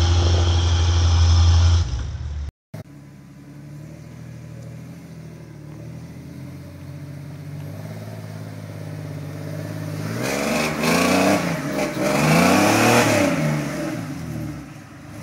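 A loud low rumble for the first two seconds or so, cut off by a brief dropout; then a lifted Jeep Grand Cherokee's engine running at low revs while rock-crawling, revved up and down several times from about ten to thirteen seconds in, with one more short rev near the end.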